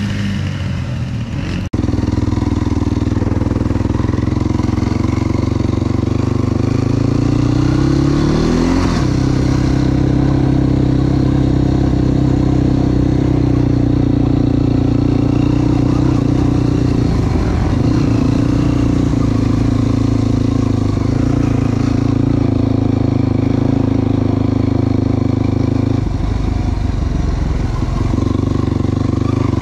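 Yamaha YFZ450's single-cylinder four-stroke engine running hard under throttle while riding. Its note climbs between about seven and nine seconds in, then holds steady, and it eases off briefly twice later on.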